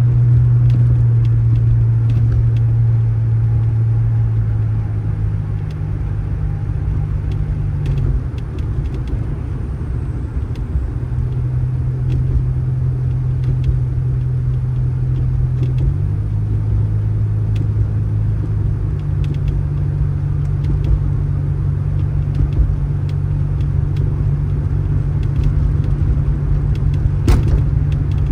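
A motor vehicle running, with a steady low engine and road drone that shifts in pitch several times. There is a single sharp click near the end.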